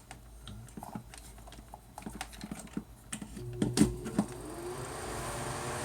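Small clicks and knocks of wires and connectors being handled, then about four seconds in the over-the-range microwave vent fan's motor starts, its hum rising in pitch as it spins up and settling into a steady whir. It is running on its low-speed winding with the run capacitor wired in.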